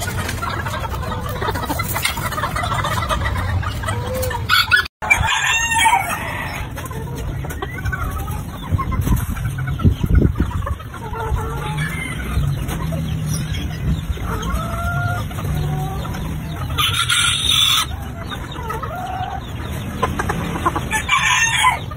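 Chickens clucking and a rooster crowing, with a steady low background rumble. The sound drops out for a moment about five seconds in.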